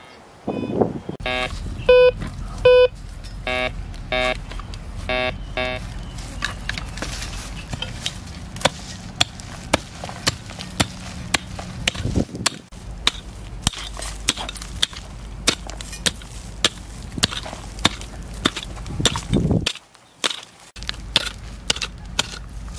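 A metal detector gives a series of short pitched beeps over the first few seconds, signalling a buried metal target. Then a hand pick strikes and breaks up soil again and again, roughly every half second, with a short pause near the end.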